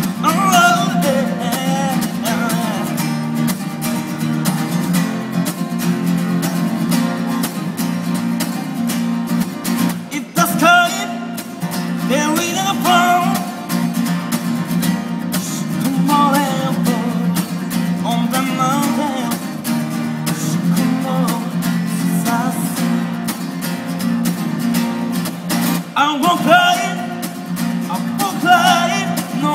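A man singing in a powerful voice while strumming an acoustic guitar. Steady strummed chords run throughout, with sung phrases coming in and out over them.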